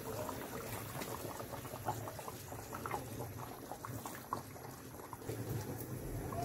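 Watery mutton curry boiling in a clay pot, its bubbles popping in quick, irregular small pops.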